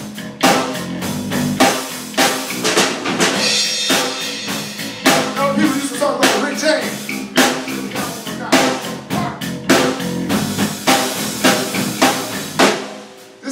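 Live band jamming: a drum kit with kick, snare and cymbals drives the beat under an electric guitar through an amp. The playing stops near the end.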